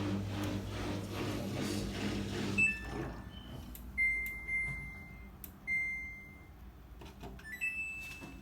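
Samsung washing machine: a steady electric hum stops about two and a half seconds in, followed by electronic beeps from its control panel, two longer tones and then a short rising pair near the end, with a few light clicks.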